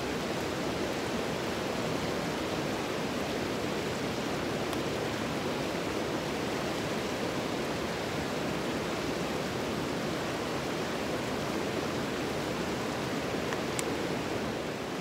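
Mountain creek rushing over rocks in whitewater rapids: a steady, even rush of water.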